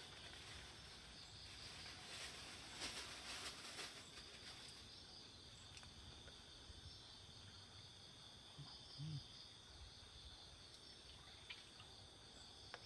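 Faint, steady chorus of night insects, with soft splashing of hands in shallow river water for a couple of seconds near the start.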